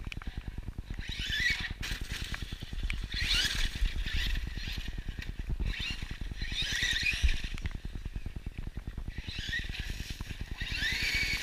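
Axial Yeti XL RC truck's electric motor and drivetrain whining in short throttle bursts, about five times, each with a rising pitch, over a steady low rumble.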